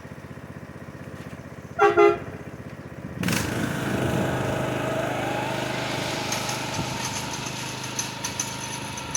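A short, loud double toot of an air-powered train horn over a small engine idling, then about a second later the engine revs up and runs louder, its pitch rising for a moment as the vehicle moves off.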